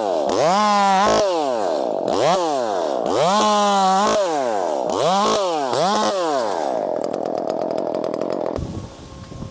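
Gas chainsaw revved up and down about once a second, then held at high revs before cutting out suddenly near the end.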